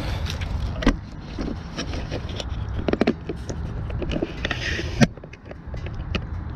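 Knocks, clunks and rattles of things being moved and handled, over a low steady rumble, with a short scraping sound about four seconds in.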